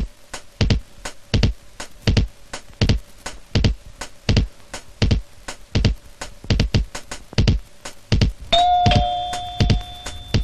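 Music: a steady beat of sharp percussive hits, about three every two seconds, heavy in the bass. A held bell-like synth note enters near the end.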